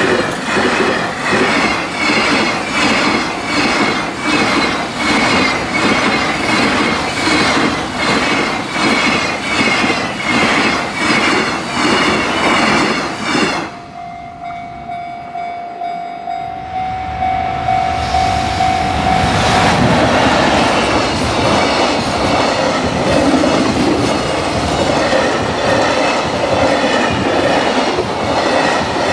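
Long container freight trains passing at speed over rail joints: the wheels beat a rapid, regular clickety-clack for the first half. It then cuts abruptly to a quieter stretch with a steady tone lasting about five seconds. After that a second freight train's rumble builds and it goes by loudly.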